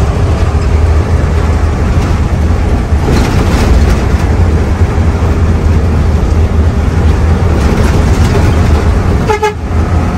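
Hino AK3HR Ranger bus engine running under way with a heavy, steady low rumble and road noise. A short horn blast sounds near the end.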